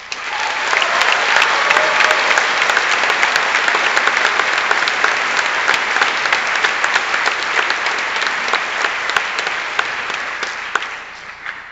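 Large audience applauding loudly. The clapping starts at once, holds steady for about ten seconds and dies away near the end.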